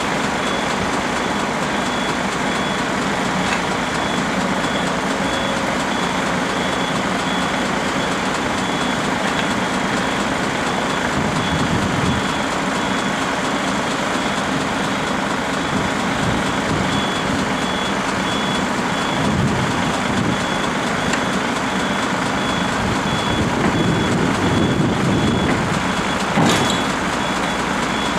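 Heavy diesel machinery running steadily, with a reversing alarm beeping in a regular series that stops for a while partway through and comes back. There is a single sharp knock near the end.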